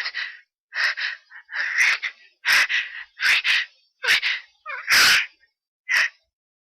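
A person sneezing over and over in quick succession, about eight sharp sneezes less than a second apart, the longest and loudest about five seconds in: a fit of allergic sneezing set off by a cat.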